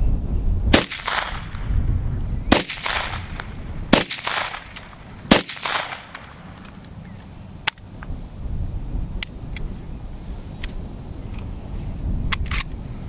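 Type 14 Nambu pistol firing four 8mm Nambu shots about a second and a half apart, each with an echo. The gun then stops firing with a malfunction, and a few light metallic clicks follow as it is handled.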